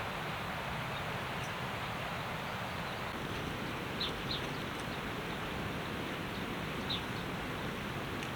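Steady rushing background noise with a few short, high chirps: two about four seconds in and one near seven seconds.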